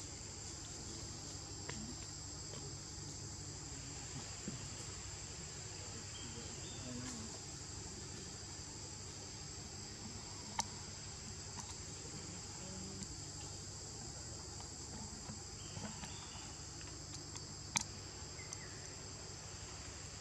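Steady forest insect chorus, a constant high buzz at two pitches. Two sharp clicks stand out, one about halfway through and a louder one near the end.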